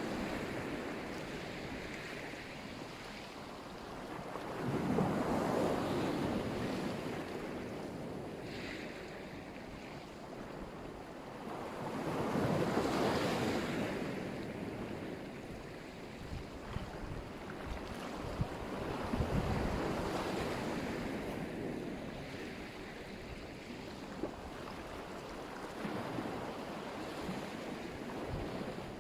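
Black Sea surf: waves breaking and washing up the shore in slow surges every six or seven seconds, with wind buffeting the microphone.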